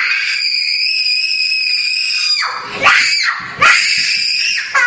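A young girl screaming in fright: one long high-pitched scream of about two and a half seconds, then two shorter screams.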